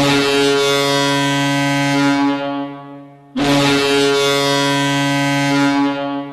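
Idaho Steelheads' hockey goal horn sounding two long blasts. Each is held for about two and a half seconds and then dies away over about a second; the second starts about three and a half seconds in.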